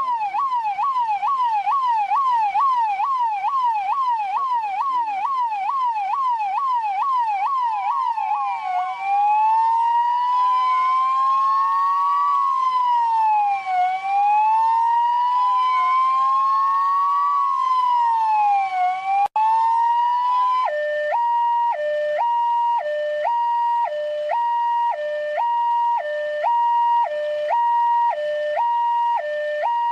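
Electronic police siren of the Indian type, cycling through its modes. It starts as a fast yelp sweeping up and down about three times a second. About 8 seconds in it changes to a slow rising-and-falling wail. After a brief break at about 20 seconds it becomes a two-tone high-low alternation.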